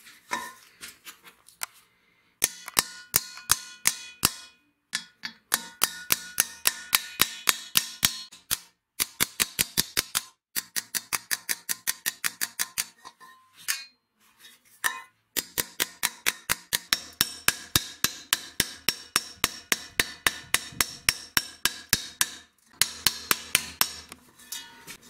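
Ball-peen hammer striking the rim of a sheet-steel warmer dish held against a steel bar in a bench vise, beating the bent flange back into shape. The blows come in quick runs of several strikes a second, each with a bright metallic ring, and there are short pauses between the runs.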